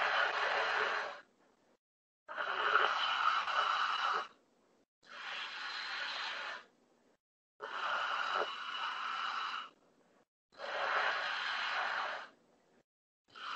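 A man's loud, noisy breaths through a wide-open mouth during a deep-breathing exercise for stammering therapy, about two seconds each with short silent gaps between them, five in a row and a sixth starting near the end.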